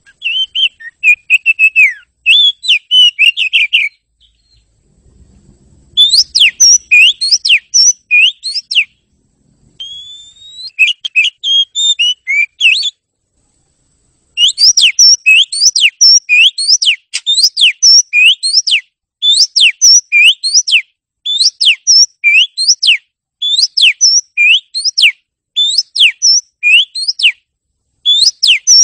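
Oriental magpie-robin (kacer) in full song: loud, clear whistled phrases broken by short pauses. About halfway in, the song turns into a long run of quickly repeated sweeping notes, two or three a second.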